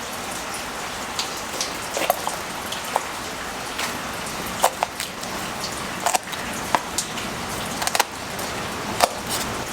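Steady hiss of rain with irregular sharp taps and clicks scattered through it.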